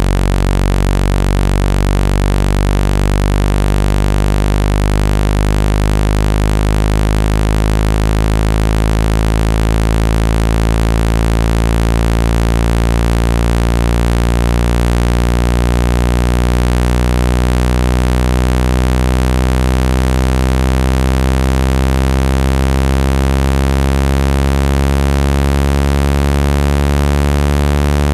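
Synthesized low-pitched buzzing tone for ejecting water from a speaker, played loud and steady, with many overtones that slowly shift against each other.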